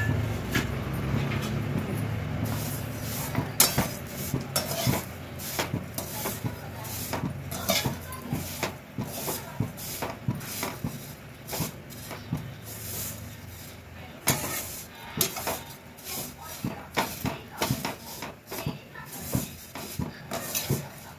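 Spatula scraping and knocking against a metal kadhai in irregular strokes, about one or two a second, as a heap of vermicelli is stirred and roasted in ghee.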